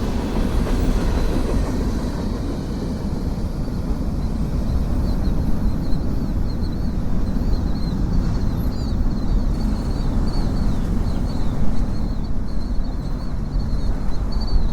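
Freight train's cars rolling past with a steady low rumble. From about five seconds in, high, quick chirps repeat over it.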